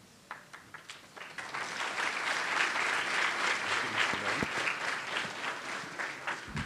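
Audience applauding. The clapping builds up over the first two seconds and slowly dies down near the end.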